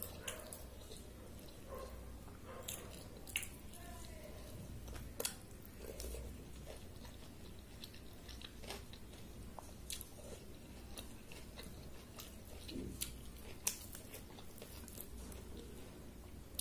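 Close-miked mouth sounds of a person eating watery soaked rice by hand: soft chewing with irregular sharp clicks and occasional crunches, along with wet squelches of fingers in the rice.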